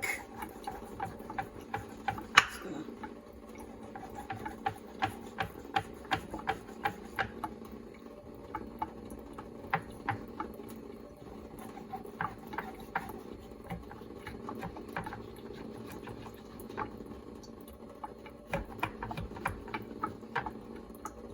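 Light clicks and taps of seasoning being shaken and tapped out of spice shakers onto a pork loin, irregular and at times two or three a second, over a steady low hum.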